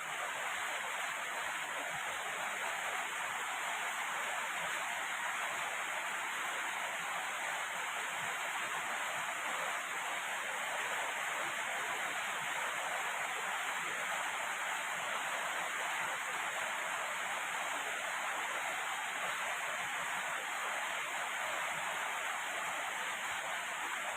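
Heavy rain falling steadily, a dense unbroken hiss.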